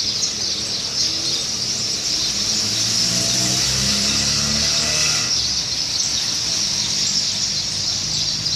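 Dense, steady high-pitched chirping of birds, with a low, drawn-out call rising over it from about three to five seconds in.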